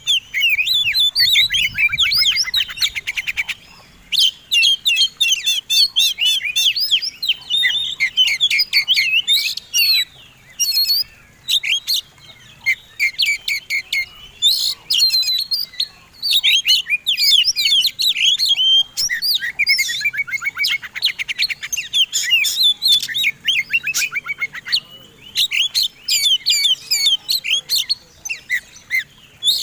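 Oriental magpie-robin song: loud, fast, varied strings of whistles and chirps with rapid trills, broken only by short pauses.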